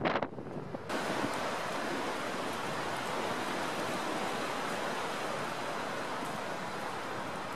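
Jet engine noise of a Boeing 777 climbing out stops abruptly about a second in. It gives way to the steady, even rushing of a Boeing 737's engines on final approach.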